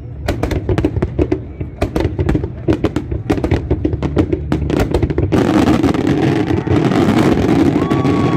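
Fireworks going off, a rapid series of sharp bangs for about five seconds. Then a dense, steady wash of noise takes over, and a whistling tone comes in near the end.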